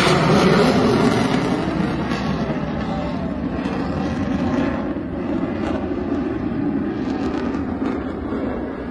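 Jet aircraft flying past overhead: a loud engine noise, strongest at the start, that slowly fades away over the following seconds.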